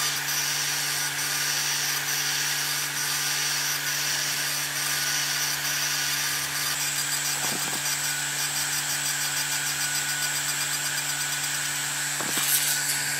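Sculpfun S10 laser engraver running: a steady whir and hum from the laser module's cooling fan and the stepper motors driving the head, with a high whine coming in about halfway through.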